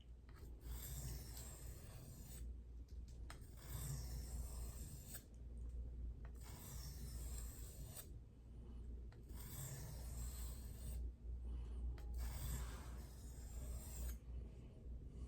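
Spyderco Domino clone knife blade being drawn across a coarse sharpening abrasive, a rasping scrape in about five long, even strokes with short pauses between them.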